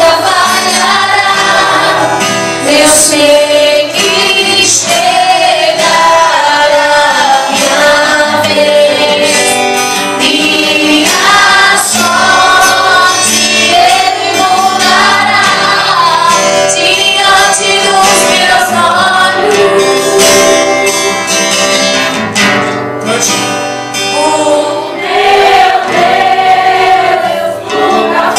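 A gospel song sung by a woman, with other voices joining in, over acoustic guitar, amplified through a PA system.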